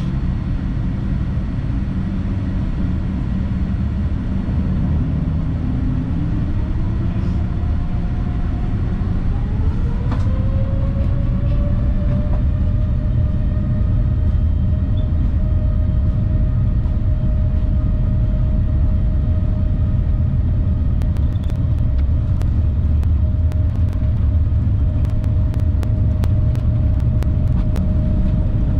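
Boeing 787-9's jet engines heard from the cabin over a steady low rumble: a whine rises in pitch as the engines spool up, then holds steady as the jet begins its takeoff roll. Faint ticks and rattles come in during the last third.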